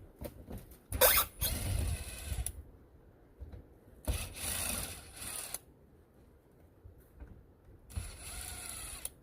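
Power drill backing screws out of a door, run three times in spells of about a second and a half each.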